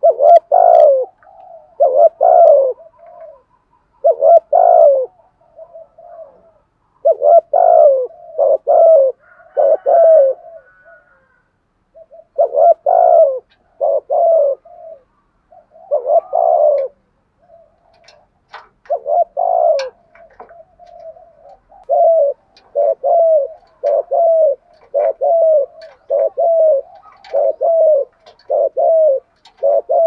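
Spotted dove cooing: clusters of low, throaty coos broken by short pauses, then an evenly paced run of coos, a little under one a second, in the last several seconds. This is the rapid 'gù thúc' (driving coo) that bird keepers play to set a newly caught dove cooing.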